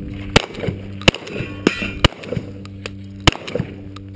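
Shotgun fired in a string of shots roughly a second apart: four sharp reports, with a fifth right at the end, and quieter knocks between them.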